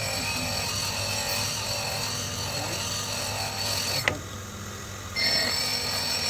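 Metal lathe cutting a square thread: a steady mechanical running sound with a high-pitched whine of several tones. About four seconds in there is a sharp click, and the whine stops for about a second before starting again.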